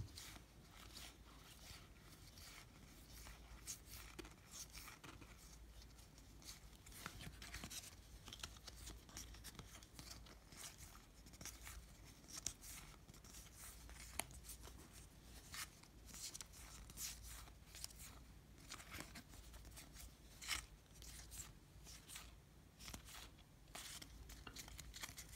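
Faint flicking and rustling of a stack of baseball trading cards being thumbed through, one card slid behind another, with irregular soft ticks over a low steady hum.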